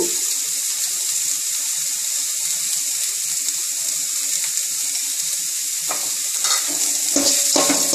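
Grated gooseberries and tempering sizzling steadily in hot oil in a steel kadai, with a few sharp metal knocks and scrapes of a spoon or ladle against the pan near the end.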